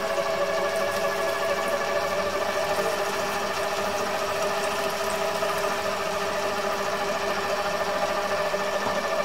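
Stand mixer motor running steadily as its dough hook kneads bread dough in a stainless steel bowl: an even mechanical whine made of several steady tones.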